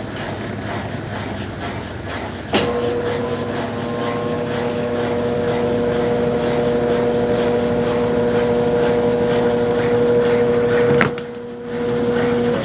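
Brastemp Ative! BWC10 10 kg top-loading washing machine agitating in its rinse cycle. Its motor switches on with a click about two and a half seconds in and hums steadily, cuts off with a click near the end, then starts again.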